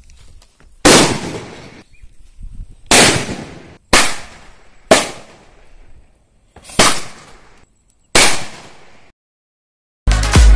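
Firecrackers exploding one after another: six loud bangs about one to two seconds apart, each dying away quickly. Upbeat electronic music starts near the end.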